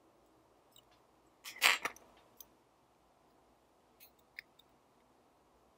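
Steel tweezers clicking and scraping against the small metal parts of a Leica M3's exposed shutter mechanism: a short cluster of sharp clicks and a scrape about a second and a half in, the loudest, then a single click and a few light ticks near four seconds.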